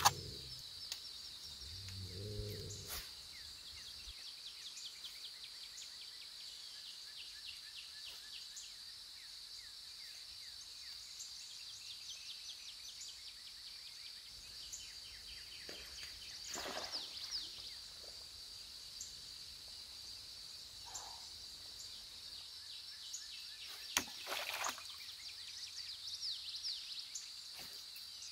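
Faint outdoor ambience: a steady high-pitched insect trill with scattered short bird chirps, broken by a few sharp clicks, the loudest about 24 seconds in.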